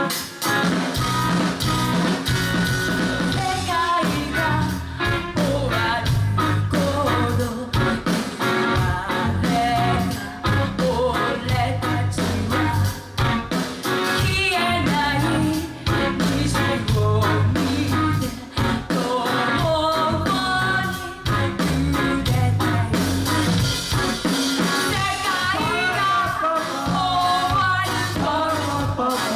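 Live rock band playing a song: singing over drum kit, electric guitar and bass with a steady beat.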